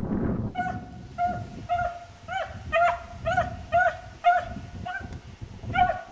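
A beagle giving tongue on a hare's trail: short, pitched barks in a steady run of about two a second, with a brief pause near the end before one last bark.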